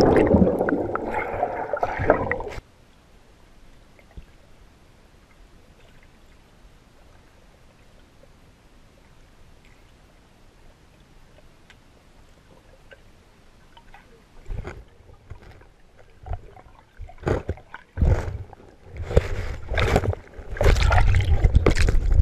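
Water sloshing and gurgling around a GoPro camera's microphone, which cuts off suddenly about two and a half seconds in. After a long faint stretch, irregular splashes start about fourteen seconds in and grow louder and denser near the end.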